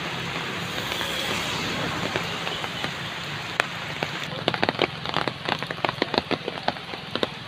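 Heavy rain falling with a steady hiss. About halfway in, many sharp, irregular taps of raindrops striking a nearby surface come in close.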